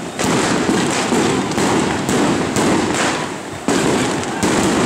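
A long string of firecrackers going off in a dense, continuous crackle of rapid bangs, with louder surges every half second or so.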